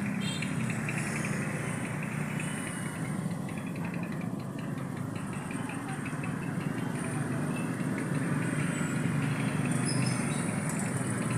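Steady road traffic: the engines of passing vehicles.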